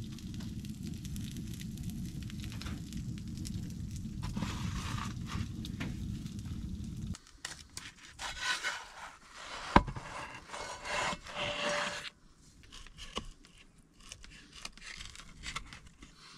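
A steady low rumble of the cooking fire, cut off abruptly about seven seconds in, followed by irregular scraping and rubbing with one sharp knock about ten seconds in, as the finished breakfast pizza is handled.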